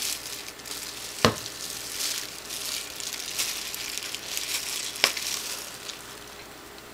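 Plastic wrap and thin plastic gloves crinkling and rustling as hands handle dye squeeze bottles, with two sharp clicks, about a second in and again about five seconds in.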